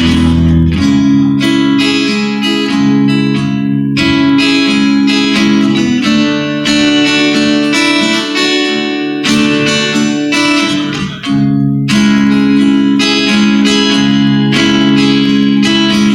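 Guitar strumming chords in a steady rhythm, with the chord struck afresh every second or two.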